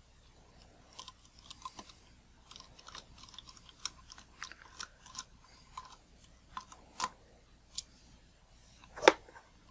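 Small screwdriver driving tiny screws into a Nikon 50mm f/1.8 lens to fix the 3D-printed focus key: irregular soft clicks and scratchy ticks of metal on the lens mount, with one sharper click near the end.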